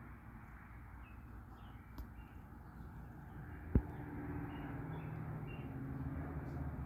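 Faint outdoor ambience with small birds chirping briefly here and there. A low steady engine-like drone builds from about halfway, and a single sharp click comes just before the middle.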